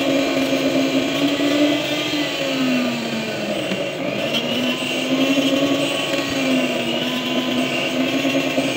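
Handheld jeweler's rotary tool with an abrasive cut-off disc running steadily, its hum sagging in pitch and climbing back a few times as the disc is pressed against 18k gold earring wire.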